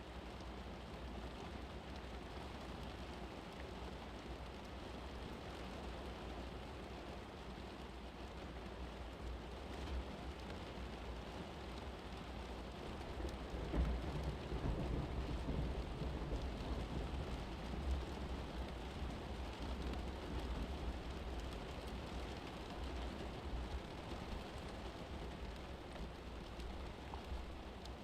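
Steady rain-like hiss, with a low rumble that swells about halfway through, like distant thunder.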